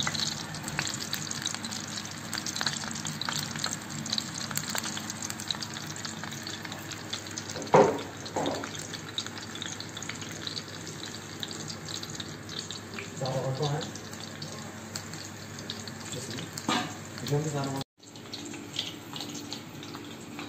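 Oil sizzling and crackling steadily in a kazan under meatballs, with a single sharp knock about eight seconds in.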